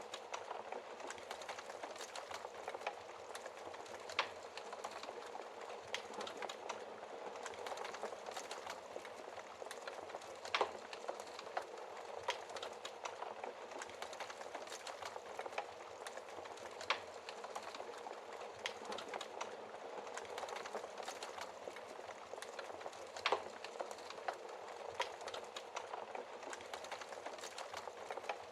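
Wood fire in a fireplace burning with a steady crackle of small clicks, broken by a few louder sharp pops, about one every six seconds.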